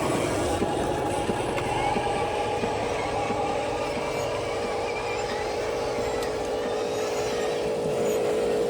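Small electric motors and gears of radio-controlled construction models running with a steady whine, with light clicks scattered through it.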